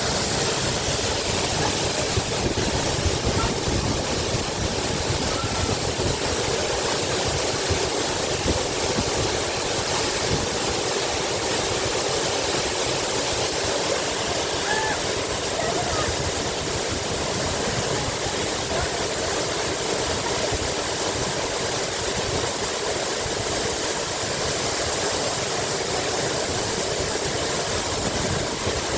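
Waterfall pouring with a steady, unbroken rush of water.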